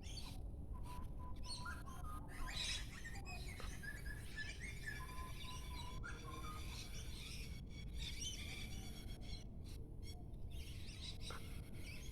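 Wild birds singing in the dawn chorus: several birds chirping, trilling and whistling at once, over a low steady background rumble.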